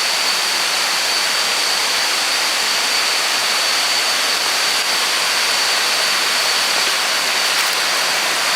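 Steady loud rush of rain-swollen falling water, with a continuous thin high-pitched whine running over it.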